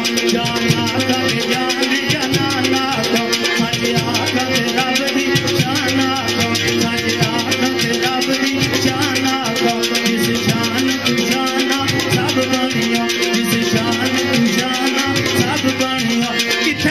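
A man singing Pothwari sher verses into a microphone over amplified music, with a fast, steady rattling percussion beat and sustained accompanying tones.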